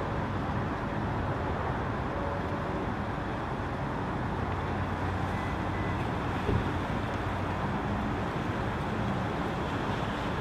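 Steady parking-lot traffic noise, with cars driving past. A single short knock comes about six and a half seconds in.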